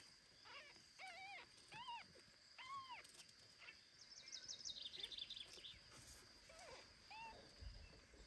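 Very young kitten mewing: four thin, high mews in the first three seconds, each rising then falling in pitch, then a couple of fainter mews later on. A quick run of high chirps comes about four to five seconds in, and a soft low thump near the end.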